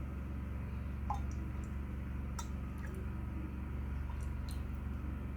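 A few faint clicks and light taps from a bottle and beaker being handled while sodium lactate is weighed out on a scale, over a steady low electrical hum.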